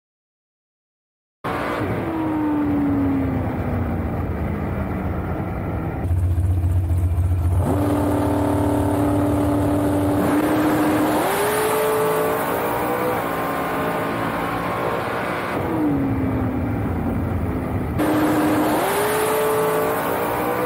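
A dragster's engine heard from on board, in several short spliced clips of runs. After a brief dropout at the start, the engine note slides down, holds steady, then climbs again in steps, over a steady rush of noise.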